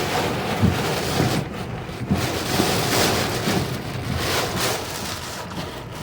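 Strong storm wind gusting with heavy rain, the gusts rumbling on the microphone in irregular surges. This is the violent windstorm that the speaker takes for a tornado.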